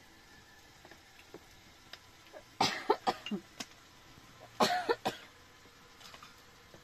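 A woman coughing in two bouts of a few coughs each, about two and a half and four and a half seconds in.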